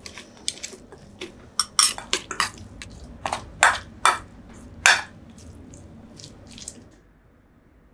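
A metal spoon clinking and scraping against a stainless steel mixing bowl as a wet tuna and cucumber salad is stirred: irregular sharp clinks that stop about seven seconds in.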